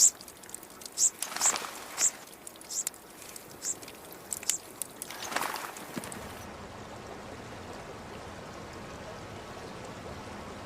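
White-winged diuca finches chirping: short high calls about once a second for the first five seconds or so, then a steady faint hiss.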